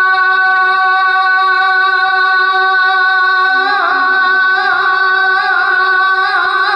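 A man singing Urdu devotional verse unaccompanied into a microphone. He holds one long steady note on the end of a line, then about three and a half seconds in his voice breaks into wavering, ornamented runs.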